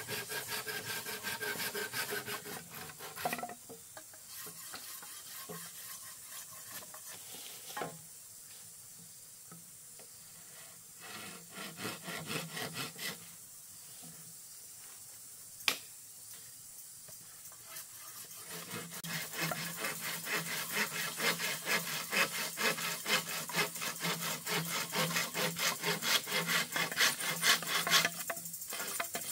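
A blade working bamboo by hand: quick, even back-and-forth rasping strokes that stop about three seconds in, and then pick up again and grow louder after a quiet middle stretch. A few sharp knocks of wood on wood come in the quiet middle stretch.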